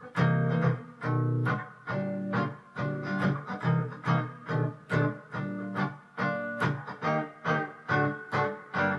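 Instrumental break in a song: guitar chords strummed in a steady rhythm, about two strokes a second.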